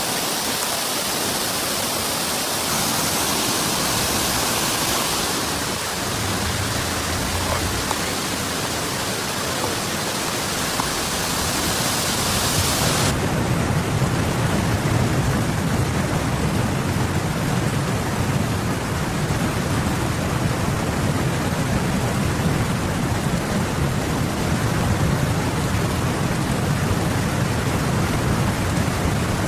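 Steady rushing noise of water, as of heavy rain and flooding. About halfway through the tone changes abruptly, losing its hiss and gaining a deeper rumble.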